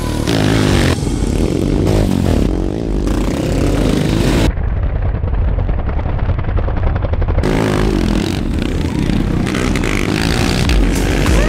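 Royal Enfield Himalayan single-cylinder engines revving up and down as several motorcycles race around a dirt track, engine pitch rising and falling. For about three seconds in the middle the sound turns muffled.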